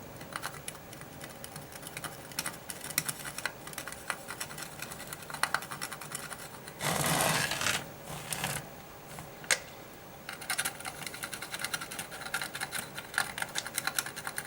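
Light, irregular clicks and taps of small electronic parts and tools being handled on a workbench, with a brief rustle or scrape about seven seconds in.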